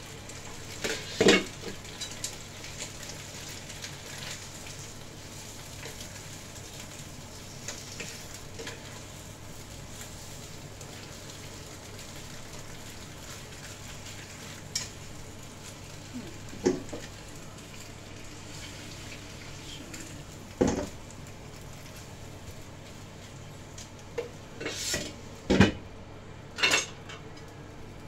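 Leafy greens sizzling in a wok on a gas burner as they are stirred with chopsticks. Several sharp clacks of the chopsticks and the glass lid against the wok come through: one about a second in, two in the middle, and a cluster near the end, where the loudest one falls.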